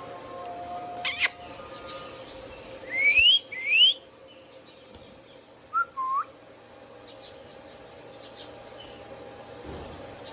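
Indian ringneck parakeet calling: a loud, harsh squawk about a second in, two quick rising whistles around three seconds, then two short lower calls around six seconds, over a faint steady hum.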